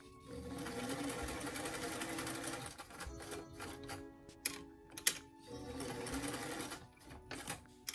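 Vintage electric sewing machine stitching a seam in two runs, its motor speeding up at the start of the first. Between the runs there is a pause of a few sharp clicks.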